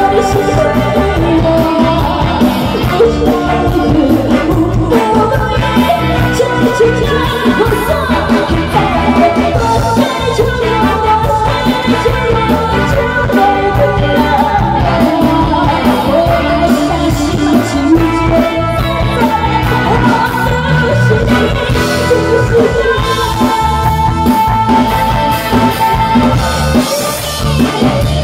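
A woman singing a pop song into a microphone over loud, amplified instrumental accompaniment with a steady beat.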